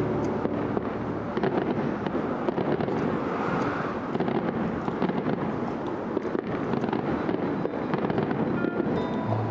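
Aerial fireworks crackling in a dense, continuous run of many small overlapping pops. Music plays underneath, fading out just after the start and coming back near the end.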